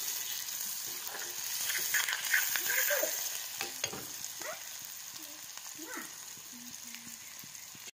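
Sliced onions and green chillies sizzling in hot oil in a black kadhai, stirred with a steel ladle that scrapes and taps the pan now and then. The sizzle is strongest in the first few seconds and settles lower after.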